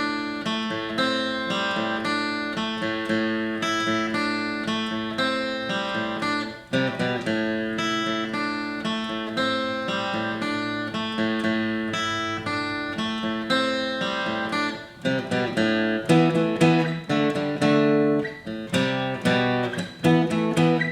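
Background music: acoustic guitar playing picked and strummed notes at a steady pace.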